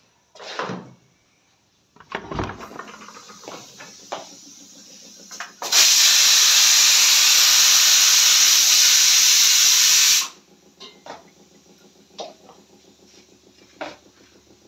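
A pressure cooker venting a jet of steam: a loud, steady hiss that starts suddenly about six seconds in and cuts off sharply after about four and a half seconds. A few light knocks come before it.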